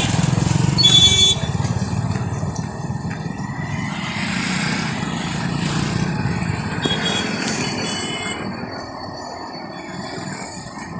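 Road traffic passing with a steady low rumble and vehicle horns honking: one loud horn about a second in and shorter ones around seven seconds. The traffic noise fades near the end.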